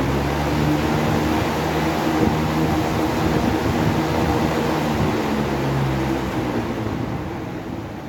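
Electric fan running at full speed: a steady motor hum with the rush of air from the blades. It spins freely and strongly, with no rubbing noise, now that the loose bushing bracket that let the rotor stick to one side has been staked tight.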